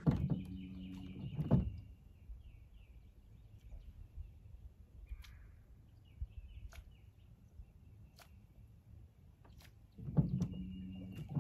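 A steady motor hum with a thin high whine above it, for about the first second and a half and again near the end, with faint bird chirps and a few light clicks in the quieter stretch between.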